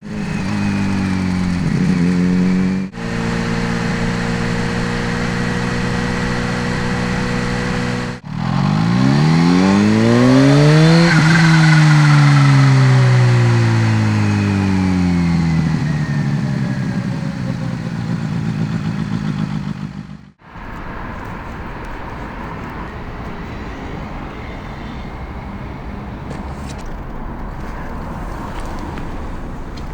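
Kawasaki Z H2's supercharged inline-four engine in several spliced segments: a steady held note, then revving up hard for about three seconds with the pitch falling away over the next several as it slows. After a cut, the last third holds only a steady rushing noise with no clear engine note.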